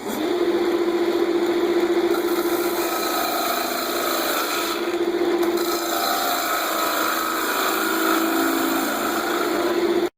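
Wood lathe running while a turning tool cuts across the face of a spinning MDF disc to true it flat: a steady hum under a continuous scraping hiss of the cut. It cuts off suddenly near the end.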